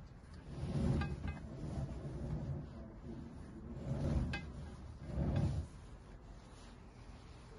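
A display turntable rumbling as it is pushed round by hand in several turns, with a few light clicks from the aluminium hamburger press standing on it.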